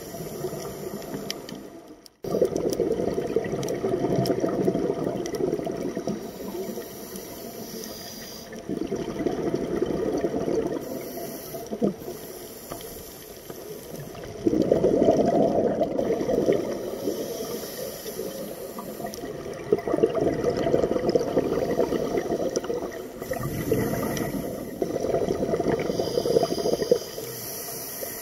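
Scuba diver breathing underwater through a regulator: rushing bursts of exhaled bubbles that swell and fade every few seconds. There is a brief drop-out about two seconds in.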